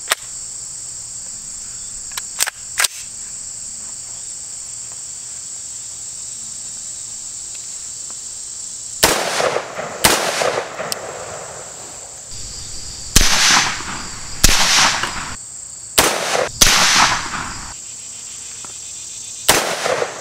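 10.5-inch AR pistol fired unsuppressed: about seven single shots at irregular spacing, starting about nine seconds in, each a sharp crack with an echo trailing off. A steady high buzz of insects runs underneath, with a few faint clicks in the first three seconds.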